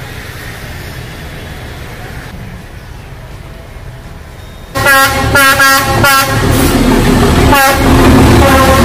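Diesel locomotive horn sounding at close range, about five seconds in: several short blasts, then a long held blast over the locomotive's engine rumble as it passes. Before it there is only a steady low background rumble.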